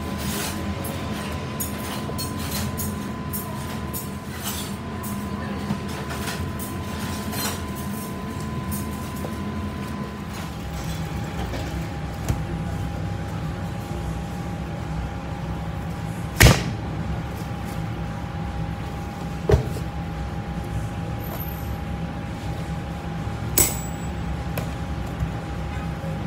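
Steady hum of a restaurant kitchen's extractor hood and appliances, with a thin whine that steps down in pitch about ten seconds in. Small clicks come from hands working raw ground beef on a steel counter, and there are three sharp knocks on the counter, the loudest in the middle and the last with a short metallic ring.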